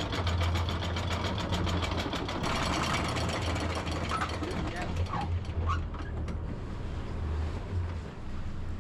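Catamaran's engine running with a steady low drone, while a fast ratchet-like clicking, about ten clicks a second, goes on for the first few seconds and then stops.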